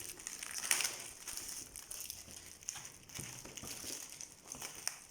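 Packaging being handled: crinkling and rustling with scattered small clicks as the carrom accessories box of coins and strikers is unpacked.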